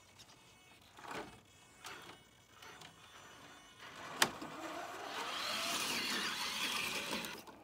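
Traxxas TRX4 RC crawler's electric motor and drivetrain whirring in a few short bursts, then a sharp knock about four seconds in as the truck drops nose-first onto the wire rope. A steady whine from the motor and gears follows for about three seconds as it rolls down the rope, cutting off near the end.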